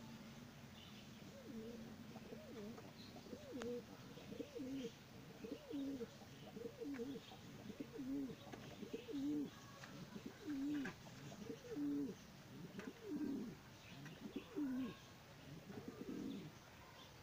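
Domestic pigeons cooing: a long run of low, arching coos, about one to two a second, starting about a second and a half in and stopping near the end.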